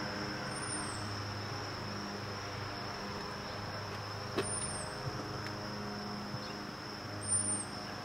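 Outdoor ambience of insects giving a steady, high-pitched drone, with a low hum underneath. Short high chirps come every few seconds, along with a few faint clicks.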